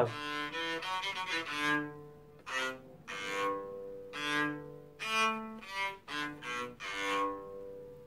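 Electric cello bowed in a short phrase of separate notes, each sounding out and then fading before the next, with a string mute wrapped around the strings behind the nut to damp the open strings.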